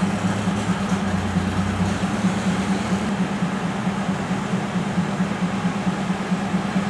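A State Railway of Thailand diesel train's engine running steadily at a standstill: a loud, constant low hum over a wash of mechanical noise.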